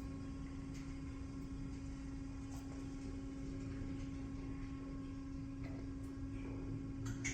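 Small 5,000-pound-capacity lift running slowly: its machinery gives a steady, even hum over a low rumble, with a couple of faint clicks near the end.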